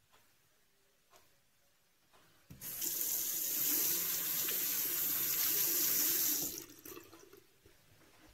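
Bathroom sink tap running for about four seconds as hands are rinsed under it to clear the lather, so the grip on a straight razor won't slip. The water starts suddenly about two and a half seconds in and is shut off after about four seconds.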